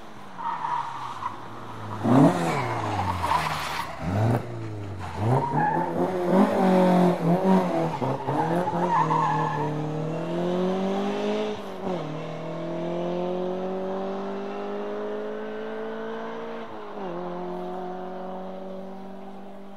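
Rally cars taking a chicane: engines rev up and down sharply through the double turn with tyre squeal, then one car accelerates away with its engine rising in pitch and shifting up twice near the end.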